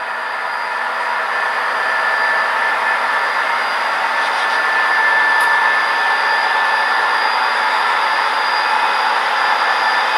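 Model freight train running up a grade on the layout: a steady whirring drone with a faint high whine, building slightly over the first couple of seconds and then holding even.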